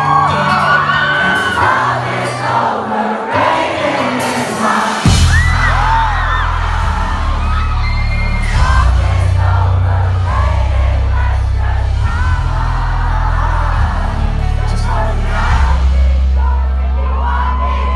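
Live pop concert heard from the audience: the crowd sings along loudly over the band, with whoops, and a heavy bass line kicks in about five seconds in and carries on.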